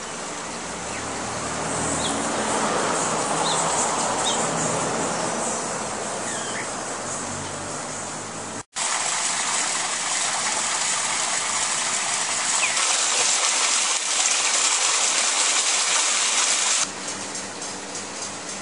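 Steady rushing outdoor noise with a few short, high bird chirps scattered through it, mostly in the first half. It cuts out for an instant about nine seconds in and drops in level near the end.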